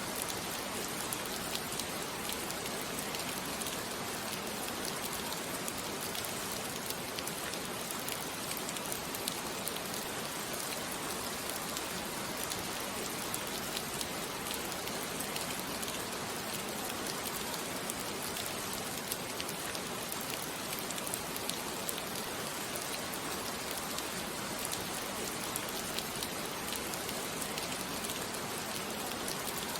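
Steady rain falling, an even hiss with fine scattered drop patter.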